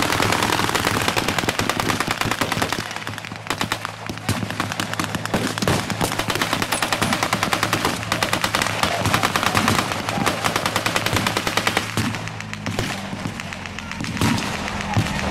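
Long, rapid bursts of machine-gun fire with blank rounds, going almost without pause. Near the end the firing thins and a vehicle engine's steady hum comes in beneath it.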